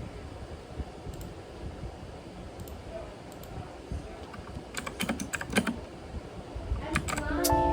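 Typing on a computer keyboard: scattered key clicks, with a quicker run of keystrokes about five seconds in and again near the end. Music comes in just before the end.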